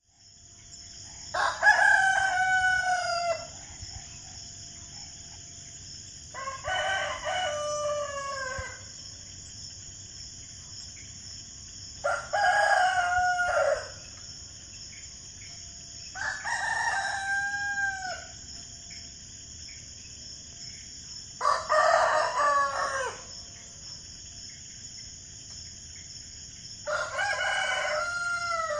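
Rooster crowing six times, about every five seconds, each crow a drawn-out call of about two seconds that drops in pitch at its end. A steady high hiss runs underneath.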